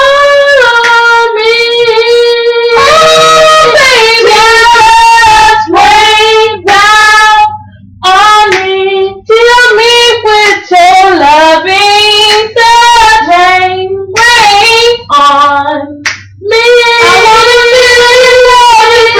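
A female voice singing loudly without words, long held notes and quick runs up and down in pitch, with short breaks about 8 and 16 seconds in.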